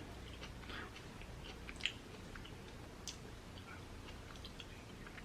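Someone chewing shellfish in garlic butter sauce, with faint wet mouth clicks and smacks at irregular intervals and one slightly louder smack about two seconds in.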